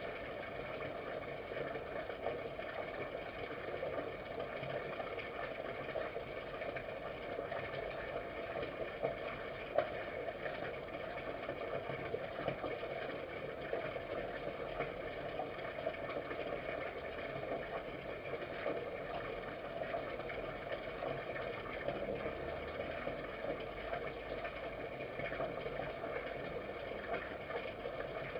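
Red fox eating from a dish, faint clicks of chewing and licking over a steady hum. One sharper click about ten seconds in.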